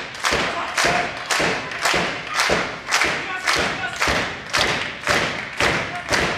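Audience clapping in unison at a steady pace of about two claps a second, each clap echoing in the hall.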